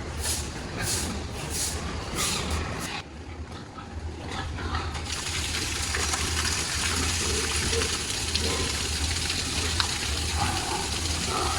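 Water spraying in a steady rush, as from a hose washing down a pig-barn floor, starting about five seconds in after a few short splashy strokes, over a low steady hum.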